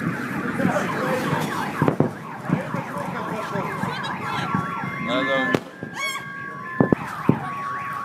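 Several car alarms sounding at once, overlapping wails and warbles with steady beeping tones, set off by the shock wave of a meteor's air burst.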